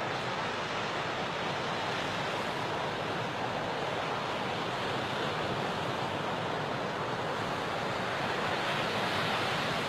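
Sea surf washing steadily onto the shore, a little louder near the end.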